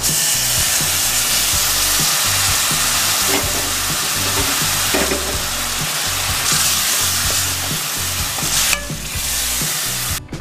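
Water added to hot oil and fried masala in a steel kadai, sizzling loudly as a steel ladle stirs the drumstick pieces. The masala has been fried until the oil separates. The sizzle eases near the end and then stops.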